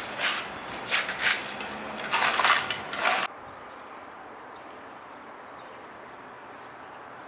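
Hand trowel scraping and working wet concrete in short, irregular strokes. The strokes cut off suddenly a little over three seconds in, leaving a steady faint hiss.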